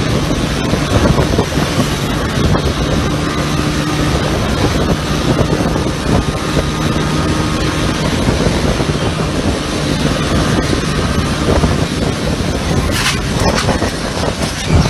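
Motorcycle engine running at highway speed under heavy wind rush on the microphone, with a steady low hum. Near the end come a few sharp knocks and scrapes as the camera rider's bike goes down in a crash.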